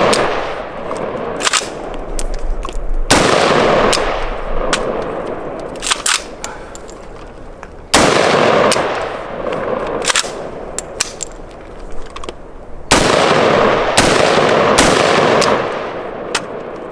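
AR-15 rifle, still cold from being frozen in dry ice, firing four single shots a few seconds apart, the last two about a second apart, each with a long echo trailing off. Fainter sharp clicks come between the shots.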